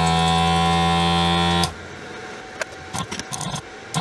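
Handheld desoldering gun's built-in vacuum pump running with a steady hum, sucking molten solder off the pins of a display board's edge connector. It cuts off suddenly a little under two seconds in, followed by a few faint clicks.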